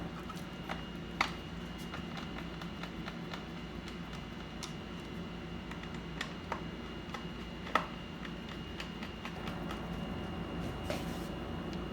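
Scattered light clicks and taps from small computer parts and tools being handled, with two sharper clicks about a second in and near eight seconds, over a steady low hum.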